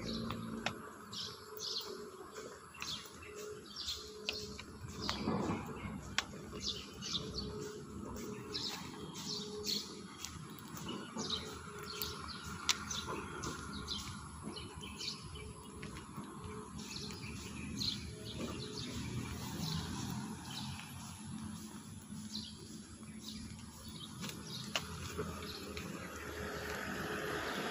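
Birds chirping in many short, quick calls, one after another.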